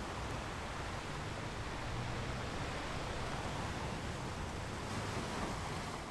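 Sea waves washing on a beach: a steady rushing surf noise that swells slightly a couple of times.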